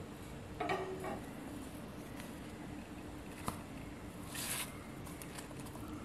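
Faint handling sounds as fingers lift and peel back a soft beetroot dosa from a stack on a steel plate: a few soft rustles and one light click, over a faint steady hum.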